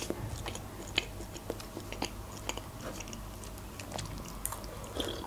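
Close-miked mouth sounds of chewing a cream-filled eclair: soft, scattered wet clicks, then a drink from a mug near the end.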